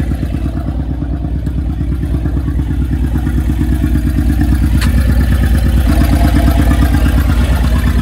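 Honda Pilot's 3.5-litre V6 running in gear with the wheels turning freely off the ground, a steady low throb; the owner says the engine has a misfire. A sharp click sounds about five seconds in.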